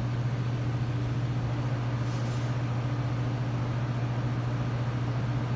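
Steady low machine hum from restaurant kitchen equipment.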